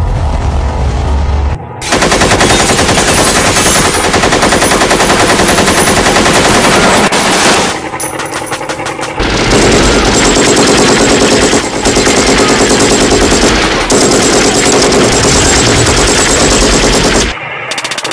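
Recorded machine-gun fire played loud over loudspeakers: long rapid bursts starting a couple of seconds in, easing off for about a second and a half midway, and stopping shortly before the end.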